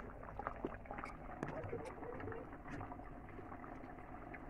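Metal ladle clinking and scraping against aluminium cooking pots as thick curry gravy is scooped from one pot and poured into a pan, with frequent short clicks.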